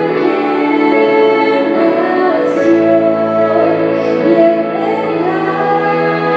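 A woman singing a Spanish Christian worship song into a handheld microphone over a sustained instrumental accompaniment.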